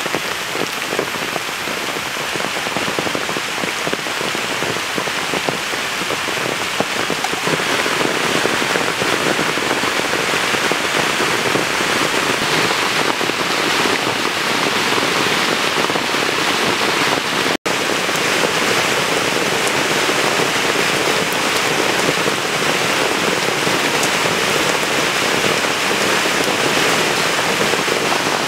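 Heavy rain falling steadily, an even, dense patter, broken by a split-second gap about two-thirds of the way through.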